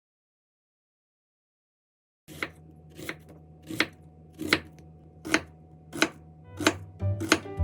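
Knife chopping on a cutting board in slow, even strokes, about one every three-quarters of a second, beginning a couple of seconds in after a silence.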